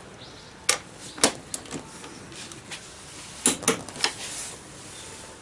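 Sharp metallic clicks and knocks from a long socket wrench working the front axle nut of a Yamaha BW'S 125 scooter as it is tightened. The clicks come singly and irregularly, loudest about a second in and again in a quick group of three about three and a half seconds in.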